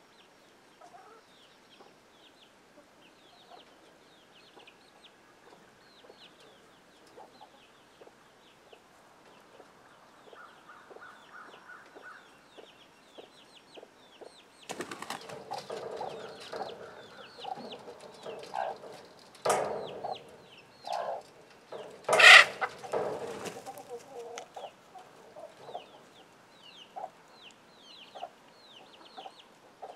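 A hen clucking with chicks peeping steadily in short falling chirps. About halfway through it gets busier and louder, with more clucking, a noisy rustle and two loud sharp bursts a few seconds apart.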